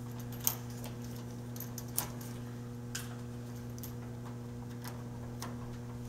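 Reddy torpedo heater's electrical hum, a steady low buzz with its igniter switched on, over a few light clicks and taps, the sharpest about half a second, two and three seconds in, as wires and connectors are handled.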